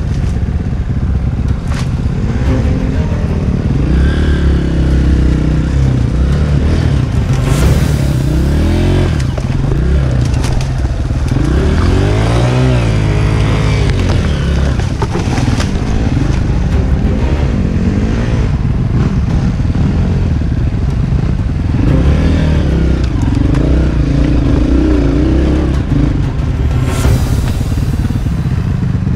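Single-cylinder four-stroke dirt bike engine revving up and down as it is ridden over a rough trail, with the bike clattering over the ground and brief gusts of wind noise.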